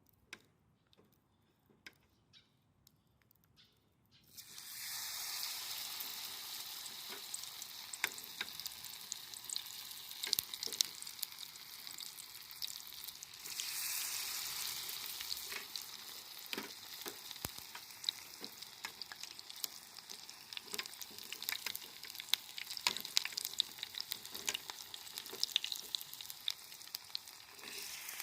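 Food lowered into hot deep-frying oil: after a few faint clicks, a dense sizzle starts suddenly about four seconds in and keeps going, with many sharp pops and crackles and a brief swell in the middle.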